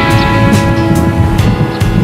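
Background music: a rock track led by electric guitar, with a steady beat.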